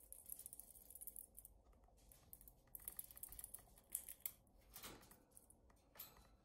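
Pet red squirrel handling and biting a walnut in its shell: faint, quick clicks and scratches of teeth and claws on the hard shell. There is a short scuffle near the end as it leaps away.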